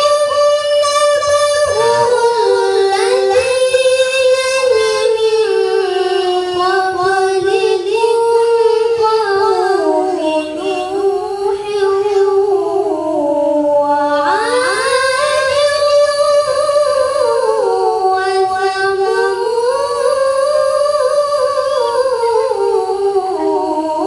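A boy qari reciting the Qur'an in melodic tilawah style into a microphone, holding long ornamented phrases that wind up and down in pitch. A little past halfway he breaks for breath and begins a new phrase that climbs high.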